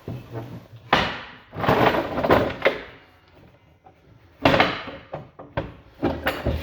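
Wooden sewing-machine tables and cabinets being shifted by hand: a run of knocks, bumps and scrapes of wood, with quieter gaps between them.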